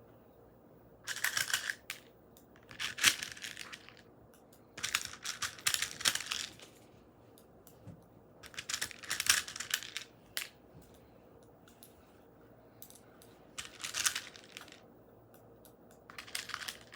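Small plastic beads rattling and clicking for a crunchy balloon squishy, in six short bursts a second or two long with quiet gaps between.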